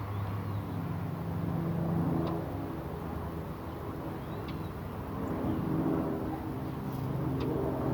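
A motor vehicle's engine running, its hum swelling twice as it passes, with a few faint short bird calls over it.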